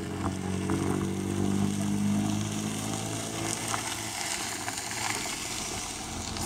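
A motor vehicle's engine running, loudest for the first three seconds and then fading away.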